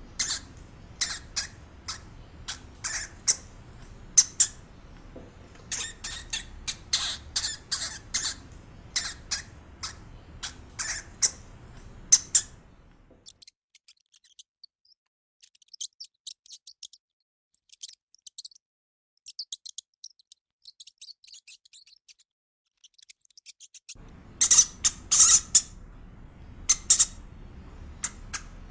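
Hamster squeaking: many short, high-pitched squeaks in quick clusters over faint background noise. About halfway through, the background drops out and the squeaks grow fainter and sparser for several seconds, then loud squeaking returns near the end.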